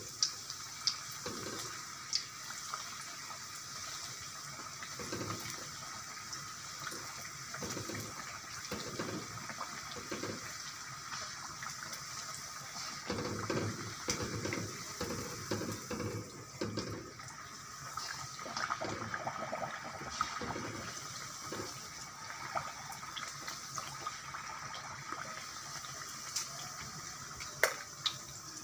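Bhatura dough deep-frying in hot oil in a karahi: a steady sizzle with small crackles, swelling briefly now and then as the oil bubbles up around the bread.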